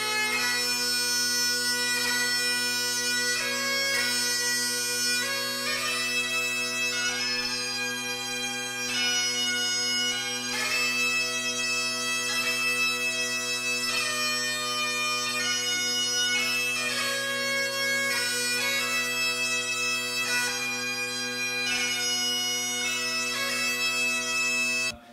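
Highland bagpipes played solo: steady drones under a chanter melody that moves from note to note. The pipes stop abruptly near the end.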